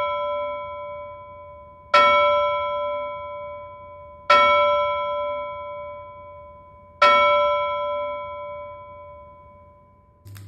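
A single bell-like tone struck three times, about two and a half seconds apart, each stroke ringing on and slowly fading; the ring of an earlier stroke is dying away at the start.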